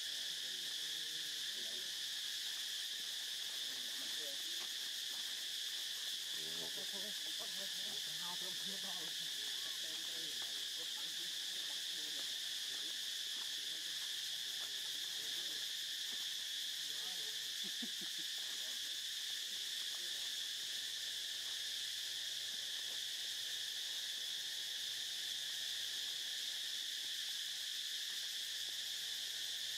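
Steady insect chorus: an even, high-pitched drone that holds at one level without a break.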